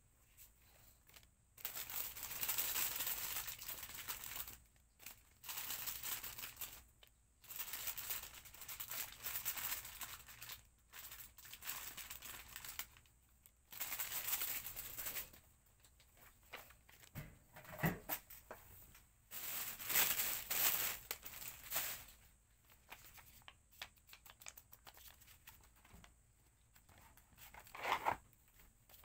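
Packaging material crinkling and tearing in a run of about ten bursts, each one to two seconds long, with short pauses between, as stock is handled and orders are packed.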